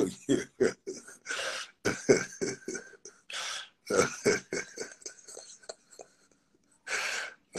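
Someone coughing and clearing their throat in repeated short, rapid bursts, trailing off about six seconds in, with one more burst near the end.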